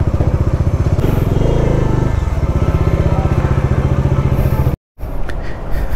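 Bajaj Dominar 400's single-cylinder engine running at low speed and idling as the bike pulls up, its pitch rising and falling once about a second and a half in. The sound cuts off abruptly near the end.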